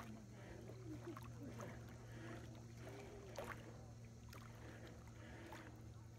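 Faint small waves lapping at the lake's edge, with a few soft knocks, over a low steady hum and faint distant voices.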